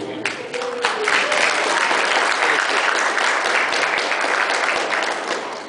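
Crowd of guests applauding, the clapping swelling about a second in and dying away near the end.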